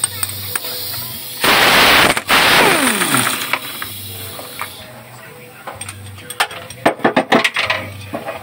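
Hand tools on the metal steering column of a Bajaj RE three-wheeler. A loud rushing noise with a falling whine comes about two seconds in, then a quick run of sharp metal clicks and taps near the end.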